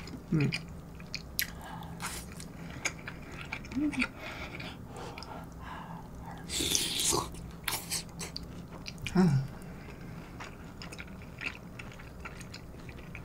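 Close-miked eating: chewing with many small wet mouth clicks, and a slurp from a spoonful of kimchi pork-cutlet stew about six and a half seconds in. A few short hums break in, around four and nine seconds.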